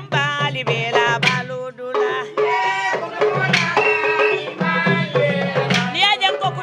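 Music with hand drums under a melodic lead line.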